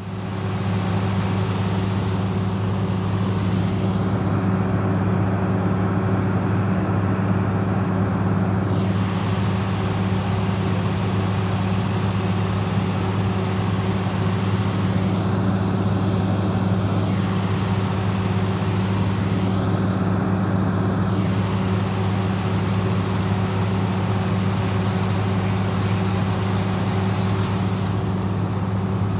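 Fire engine's engine and pump running steadily under load while the deck gun flows, a constant low hum with a steady rushing hiss of water spray over it.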